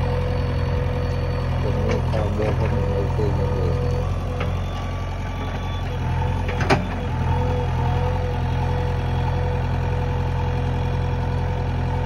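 JCB 3DX backhoe loader's diesel engine running steadily, with a steady whine over the engine note. A single sharp knock a little past halfway is the loudest moment.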